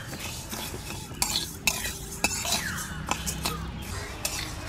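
Metal spatula scraping and stirring split urad dal around a metal kadai, the dry lentils rattling against the metal in repeated strokes, about two a second, as they are roasted.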